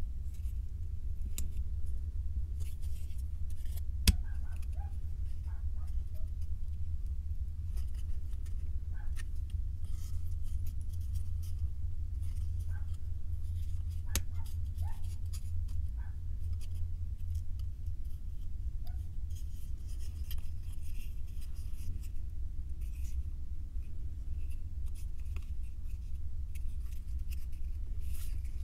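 Small 3D puzzle pieces being handled and fitted together: scattered light clicks and soft rustling, with one sharp click about four seconds in and another about fourteen seconds in, over a steady low hum.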